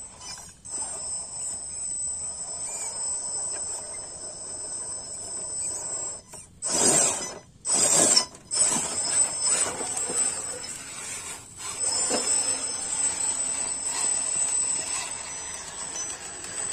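Scale RC rock crawler's electric motor and drivetrain whining steadily as it crawls over boulders. About seven and eight seconds in, two loud bursts come as the truck lurches up a steep rock step and tips sharply.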